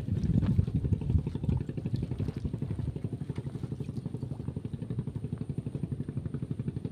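A small engine running steadily, with an even beat of about seven pulses a second. A few light knocks come in the first second or so.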